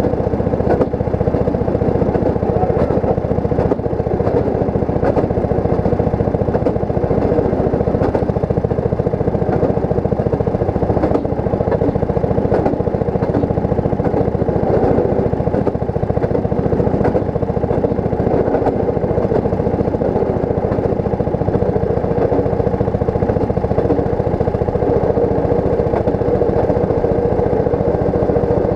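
Rail speeder (track motorcar) running along the track: a steady small-engine drone, with the steel wheels clicking over rail joints roughly once a second.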